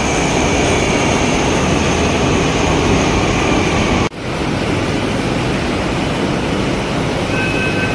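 Mumbai Metro Line 7 train pulling into the platform: loud, steady rumble and hiss of the train running past the platform screen doors, with a brief break about four seconds in. Near the end an electronic beeping starts.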